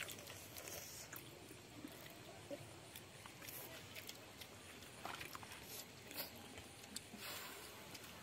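Children slurping and chewing cup noodles, faint, with scattered small clicks and a few short slurps.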